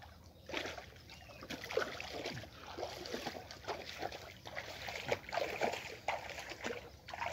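Water splashing and sloshing in an uneven rhythm as someone wades with bare legs through shallow, muddy water.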